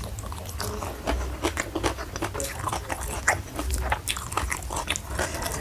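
Close-miked chewing and biting of crunchy food, with irregular crisp crackles and crunches several times a second.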